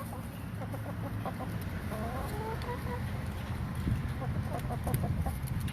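Laying hens clucking, a series of short rising calls coming in several bunches.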